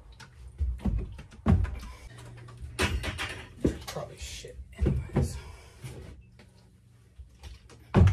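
Irregular knocks and thumps of a plastic bucket being handled, set down and lifted up against the woodwork, with rustling and clatter between them; the loudest knock comes near the end.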